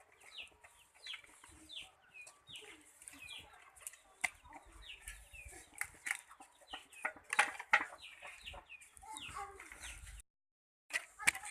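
Chickens calling: a steady run of short, falling high peeps and clucks, about two a second, mixed with scattered sharp clicks and knocks. The sound cuts out for about half a second near the end.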